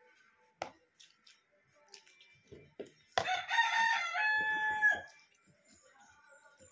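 A rooster crowing once, about three seconds in, for nearly two seconds, with a held note at the end. Faint clicks of spoons against plates come before it.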